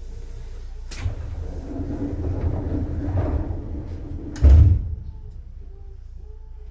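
Sliding doors of a Seibu 2000 series commuter train closing: a sharp click about a second in, a few seconds of rising sliding noise, then a heavy thud as they shut.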